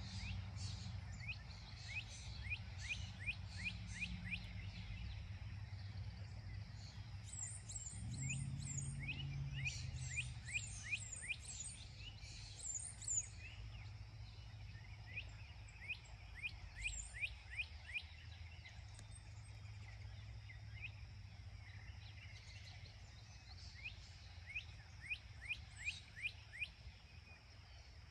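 Birdsong: one bird repeats phrases of quick, falling whistled notes, several a second, four times over, while another gives high, thin chirps. A steady low hum runs underneath.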